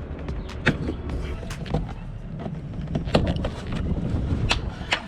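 Cutting into the plastic of a Jeep JL's rear fender by hand: irregular sharp snaps and clicks, about eight in five seconds, over a low rumble.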